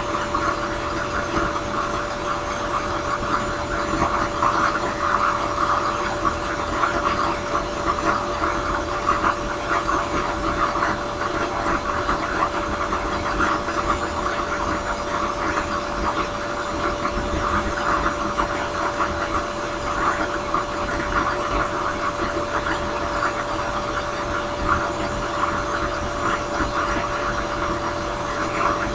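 Drill press spinning a sanding drum, running with a steady whine. A briar pipe bowl is pressed against the drum and shaped, and the rasp of wood being sanded swells and fades as the pipe is worked and lifted away.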